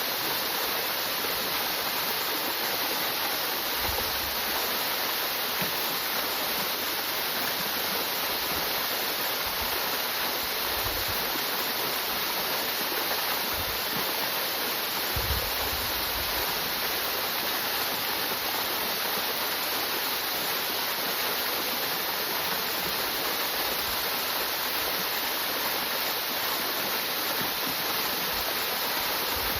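Gohō Falls waterfall: a steady rush of falling water, with a few soft low bumps.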